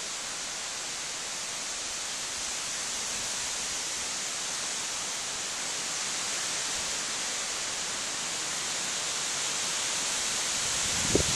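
Steady hiss of wind through trees and shrubs, slowly growing louder, with a short knock near the end.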